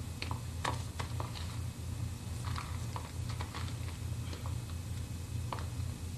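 Steady low hum of an old TV soundtrack under faint, scattered clicks and soft rustles as a stack of loose manuscript pages is picked up and handed over.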